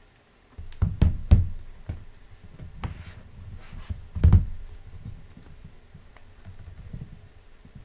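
Handling noise: a quick cluster of low thumps and knocks about a second in, a heavier thump about four seconds in, and light rustling and scraping between.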